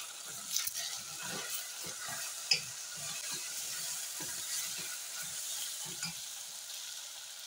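Goat meat sizzling as it fries dry in its own rendered fat in a stainless steel saucepan, cooked down and browning to the point of almost burning. A wooden spoon stirs and scrapes it in repeated quick strokes that stop about six seconds in, with one sharp click about two and a half seconds in.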